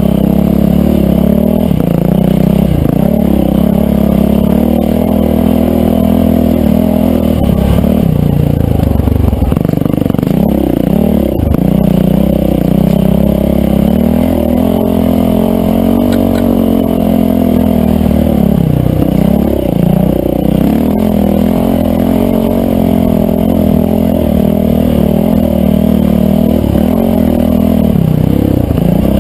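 Yamaha dirt bike engine running hard under throttle. Its pitch drops and climbs again several times as the throttle is eased and reopened.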